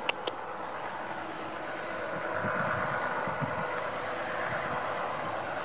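A steady mechanical hum with faint held tones, growing a little louder from about two seconds in, with two sharp clicks right at the start.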